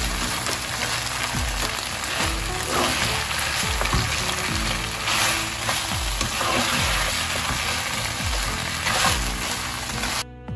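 Chicken bites sizzling in sticky sweet chili sauce and melting butter in a frying pan, stirred with a spatula. The sizzle cuts off suddenly near the end, over background music with a slow steady beat.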